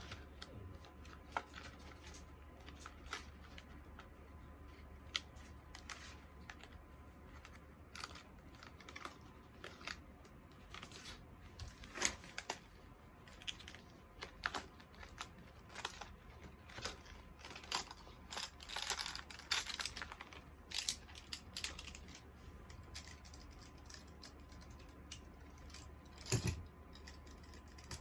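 Scattered light clicks, taps and rustles of small items and packaging being handled, busier about two-thirds of the way through, with one louder knock near the end.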